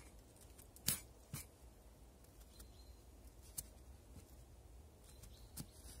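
Small knife cutting slits into raw potatoes on a metal skewer. There are a few faint short clicks as the blade cuts and reaches the skewer, the loudest about a second in.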